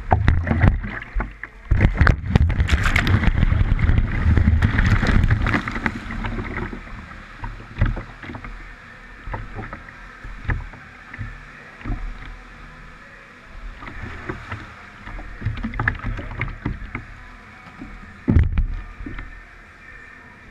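Pool water splashing and churning as a rescuer swims hard with a rescue tube: loud, dense splashing for the first several seconds, then lighter sloshing and lapping with scattered sharp splashes and one louder splash near the end.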